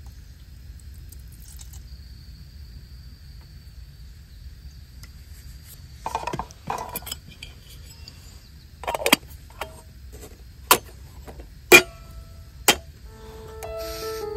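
A metal kettle set on a gas camp stove's grate and handled on a metal camp table: a handful of separate sharp metal clinks and knocks, some ringing briefly, over a low steady outdoor rumble.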